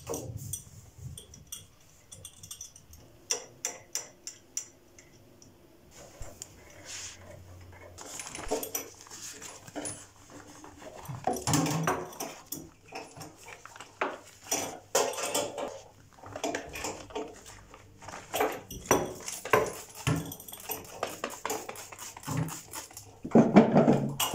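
A dog making sounds, among many short clicks and knocks; the dog sounds come in short bursts from about a third of the way in and are loudest near the end.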